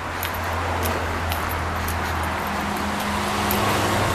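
Steady rush of road traffic that swells toward the end as a vehicle passes, with light footsteps on the paved trail ticking about twice a second.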